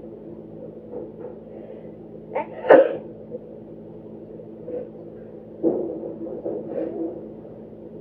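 A person sneezing once, deliberately induced: a short catch and then the loud sneeze burst about two and a half seconds in. A few seconds later comes a weaker, drawn-out rough breath, over a steady low hum.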